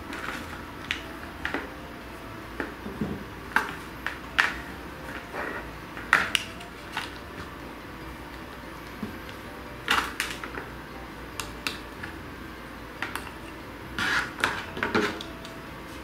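Irregular knocks, clicks and scrapes of a small submersible aquarium pump, its hose and cord being handled and shifted about against the inside of a hard empty bowl, with a few louder knocks in the middle and near the end.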